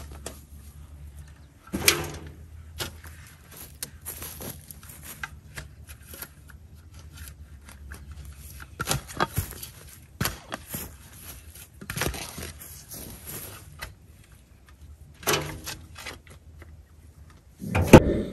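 Shovel blade being driven into dry, grassy ground and scraping out soil to dig a footing hole. Irregular thunks and scrapes come a second or several apart, the loudest near the end.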